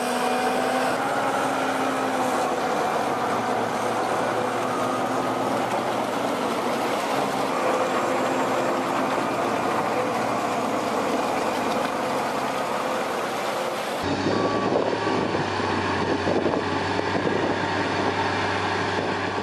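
Heavy diesel machinery running steadily: a tracked forestry tractor's engine working over muddy ground. About 14 seconds in, the sound switches abruptly to another recording of heavy equipment with a steady low engine hum.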